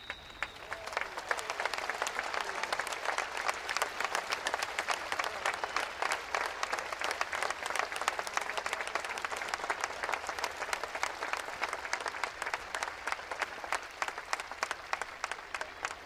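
Audience applauding, the dense clapping building up about a second in and thinning out to scattered claps near the end.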